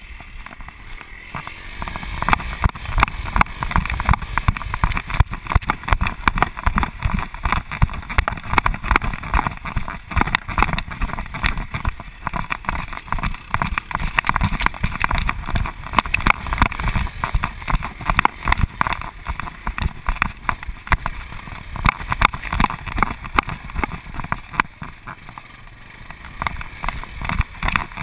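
Handling noise from a GoPro camera strapped to a running dog: a dense, irregular run of knocks and rubbing with wind rushing over the microphone. It grows louder about two seconds in as the dog picks up speed.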